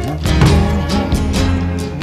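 Music: a song with guitar and a steady beat.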